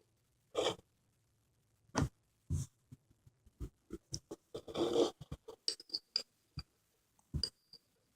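Close-miked konjac jelly being scooped and eaten with a spoon: a run of short sticky clicks and wet squishes, with a longer squelch about five seconds in.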